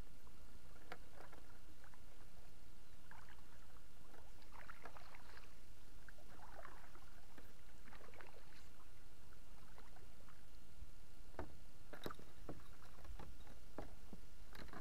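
Kayak paddle strokes in calm water, a soft splash every second or two. Near the end come a few sharp knocks as the paddle is laid down on the plastic kayak.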